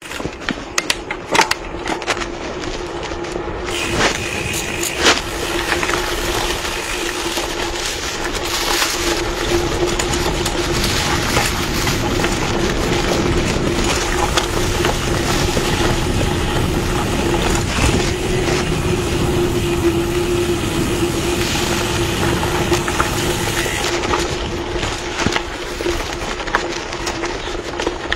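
Mountain bike rolling fast down a dirt forest trail, heard from the handlebars: tyre rumble over dirt and leaves mixed with wind on the microphone, and a steady hum throughout. Knocks and rattles of the bike over bumps come thickly in the first few seconds and now and then after.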